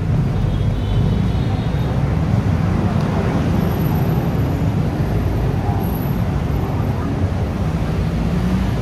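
Steady road traffic on a busy city street: a continuous low rumble of engines and tyres, with voices of passers-by underneath.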